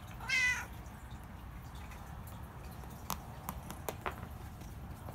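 A long-haired tabby cat gives one short meow about a quarter second in. A few faint sharp clicks follow about three to four seconds in.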